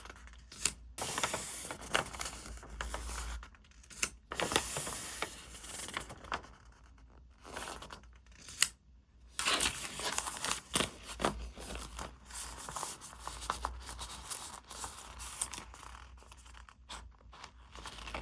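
Paper craft materials being handled: irregular tearing, snipping and rustling of paper and stickers, with sharp crisp strokes scattered throughout.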